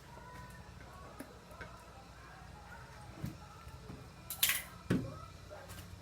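Light handling noises over a low steady room hum: a few soft knocks, with a brief scraping rustle about four and a half seconds in, followed by a sharper knock.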